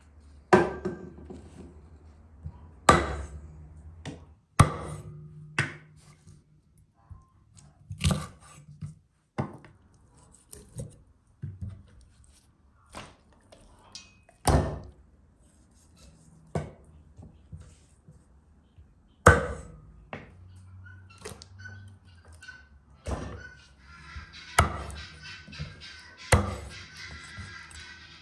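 A series of sharp, irregular knocks of things being set down on and moved about a thick wooden chopping board. Near the end comes a stretch of scraping.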